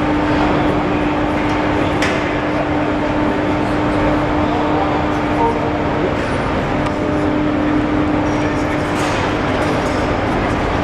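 Overhead bridge crane running while it carries a heavy suspended load: steady mechanical noise with a steady hum that stops near the end.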